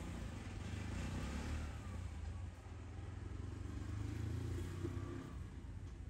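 Faint, steady low rumble of a motor vehicle's engine in the background, swelling slightly about four seconds in.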